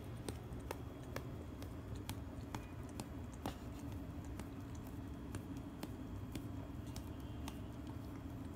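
Quiet room tone: a steady low hum with scattered faint clicks, a few each second.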